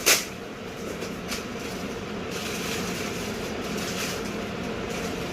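A steady mechanical rumble with a faint low hum, with a sharp click right at the start and a lighter click about a second later.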